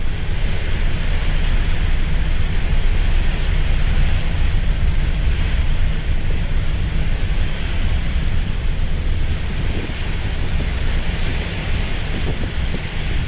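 Wind buffeting the microphone with a heavy low rumble, over a steady rush of sea water, on a ferry under way.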